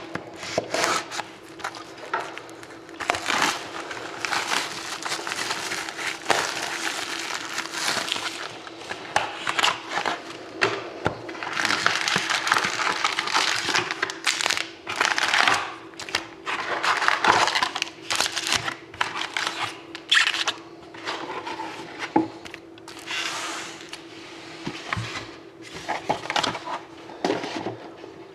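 Plastic shrink wrap crinkling and tearing and cardboard being handled as a sealed hockey card box is unwrapped and opened. The sound comes in irregular bursts of rustling and cracking over a faint steady hum.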